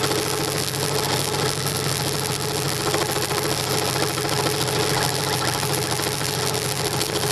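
Scroll saw running steadily while cutting wood: a constant motor hum with the fast, even chatter of the reciprocating blade.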